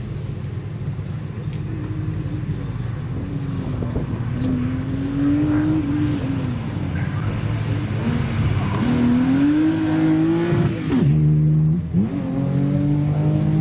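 Car engine driven hard through a slalom run, revs climbing and easing off again and again. About eleven seconds in the revs drop sharply, hold low briefly, then climb again.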